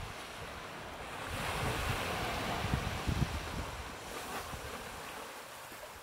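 Small ocean waves washing up a sandy beach. One wash swells a little over a second in and fades away by about five seconds. A low rumble of wind sits on the microphone underneath.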